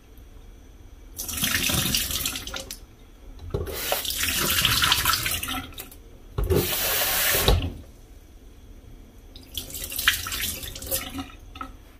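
Kitchen tap water running and splashing in a stainless-steel sink as glutinous rice is rinsed in a bowl: water runs into the bowl and the cloudy rinse water is poured off. The splashing comes in four spells of a second or two each, with quieter gaps between.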